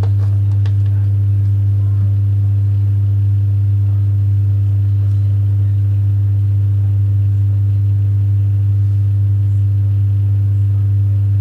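Loud, deep, steady hum that never changes, with a fainter higher tone above it and a couple of faint ticks near the start.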